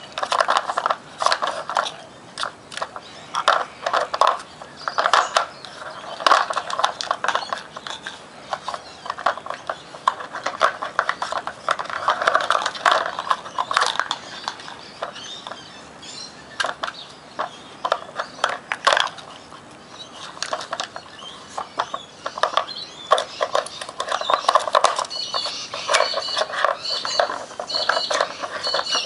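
Hard plastic pieces of a Nina Ottosson dog puzzle clattering, knocking and scraping on brick paving as two puppies nose the cones off the board and root for treats, in irregular clicks and bursts of rattling. A bird chirps near the end.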